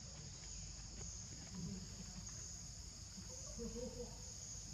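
Steady high-pitched chorus of forest insects, rising and falling slightly in strength.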